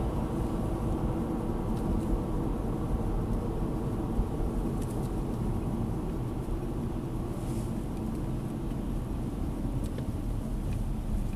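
Steady low rumble of engine and tyre noise inside a car's cabin as it drives along at moderate speed, with a few faint clicks.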